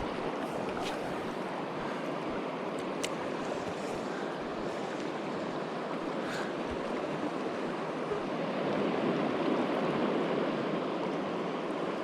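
Mountain river water rushing steadily over rocks, a little louder in the second half. A few faint clicks sound over it.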